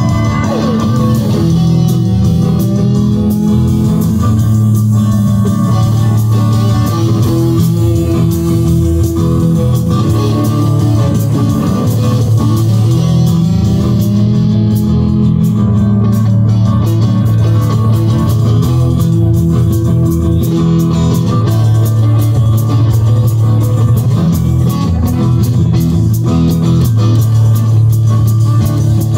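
Live band music with two electric guitars being played, loud and steady.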